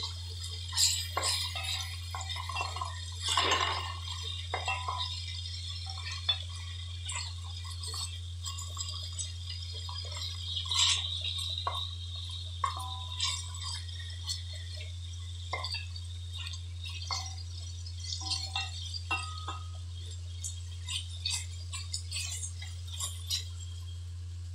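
Wooden spatula knocking and scraping against an aluminium pot as chicken pieces are stirred and turned, with light sizzling from the pan. A steady low hum runs underneath.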